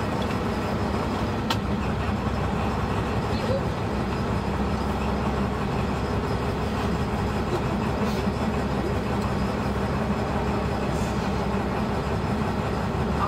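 V22 diesel shunting locomotive running along the track, heard from on board: a steady engine drone with rolling noise and a sharp click from the rails about a second and a half in.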